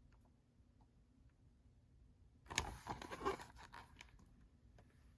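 Near silence, broken about two and a half seconds in by a brief rustle with a few clicks, handling noise lasting about a second and a half.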